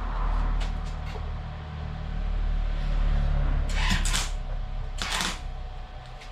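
MIG welder humming, with two short bursts of crackling arc from tack welds on thin sheet metal, the second about a second after the first.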